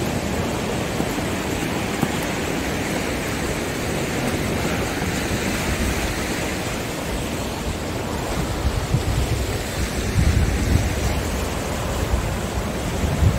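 Waves breaking and washing over a rocky shore in a steady rush, with wind buffeting the microphone in low gusts about two-thirds of the way through.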